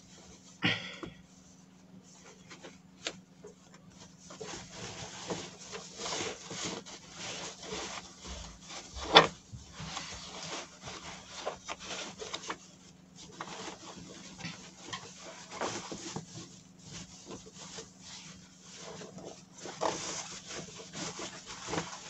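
Fabric and foam rustling and rubbing as a padded knit fabric cat bed is pulled and turned right side out by hand, with a sharp knock about nine seconds in. A faint steady low hum runs underneath.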